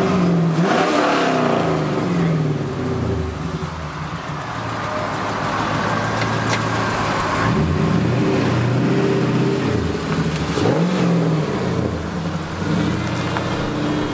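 A car engine idling and being revved three times, each rev rising quickly and falling back to idle: once right at the start, then about seven and a half seconds in, then about ten and a half seconds in.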